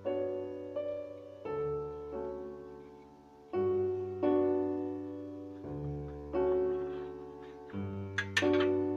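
Solo piano classical music, with chords struck and left to ring away. Near the end, two short sharp clicks sound over it.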